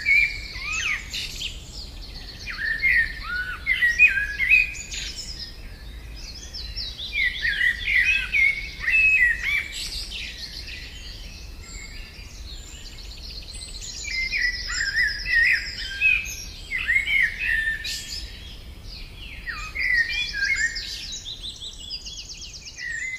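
Songbirds singing: a busy mix of short whistled and chirping notes with fast buzzy trills, in repeated bursts a second or two long.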